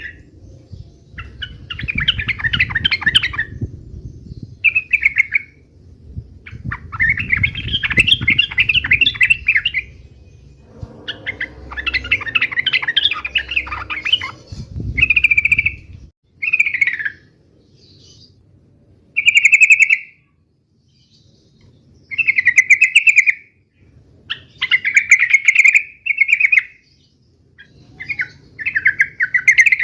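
Yellow-vented bulbul (trucukan) singing a run of bubbling, chattering phrases, each one to two seconds long with short pauses between them. This is the aggressive 'fighting' style of song that keepers use to make other bulbuls answer.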